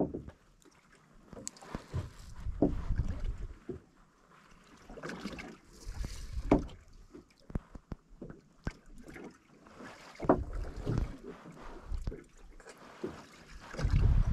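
Small fishing boat drifting at sea: wind gusting on the microphone in irregular low surges and water moving against the hull, with scattered light knocks.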